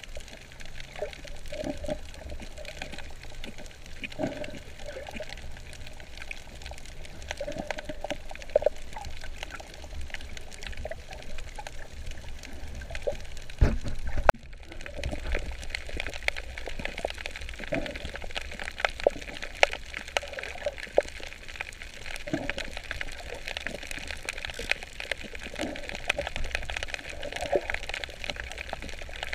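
Water sound heard through a camera underwater while snorkelling: a steady watery rush with bubbling, sprinkled throughout with many small sharp clicks. A couple of louder knocks come about halfway through.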